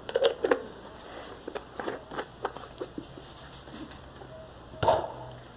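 Scattered light taps and clicks of a plastic glue bottle and pot being handled, with the loudest near the start and about five seconds in.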